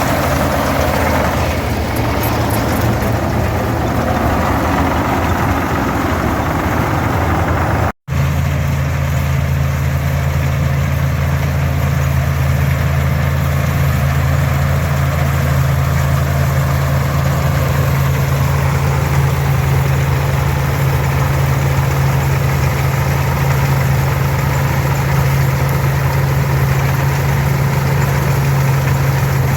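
Farmall 460 diesel tractor and International 82 pull-type combine running steadily together, a continuous low engine drone. The sound cuts out for an instant about eight seconds in, and the low engine tone is stronger after the break.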